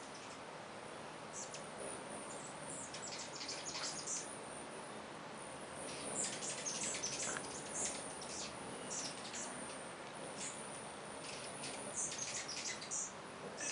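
Many hummingbirds chipping and chattering: clusters of quick, high, squeaky notes that come and go, busiest from about six to nine seconds in and again near the end, over a steady faint hiss.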